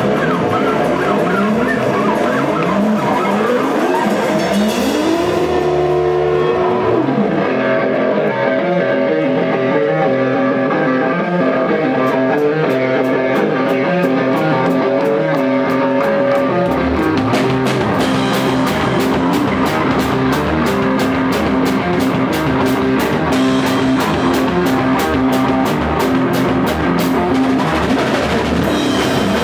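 Live rock band playing: guitar notes bend and slide in pitch over held tones, then the drums and bass come in about seventeen seconds in, with steady cymbal strokes of about three a second.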